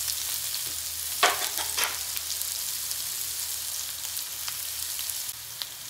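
Diced carrot and potato sizzling in hot oil and ghee in a kadai, a steady hiss with a few sharp crackles about a second in.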